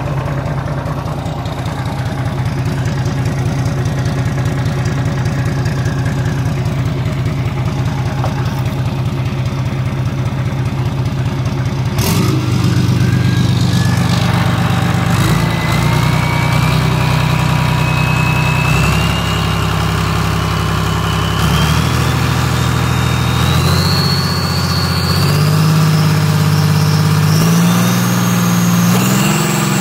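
Volvo Penta D6-350 marine diesel engine, a turbocharged inline six, running on a test stand: it idles with an even pulse, then about twelve seconds in the revs are raised in several steps. As it speeds up, a whine climbs steadily in pitch.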